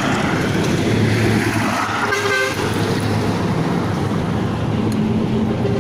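Steady rumble of road traffic, with a short car-horn toot about two seconds in.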